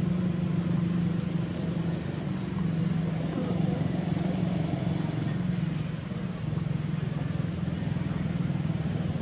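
An engine runs steadily with a low, even hum that does not rise or fall in pitch, under a steady high hiss.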